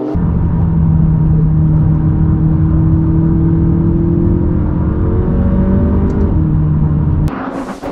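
McLaren 570S's twin-turbo V8 heard from inside the cabin, running hard at a nearly steady pitch that rises slightly midway, then cutting off suddenly near the end.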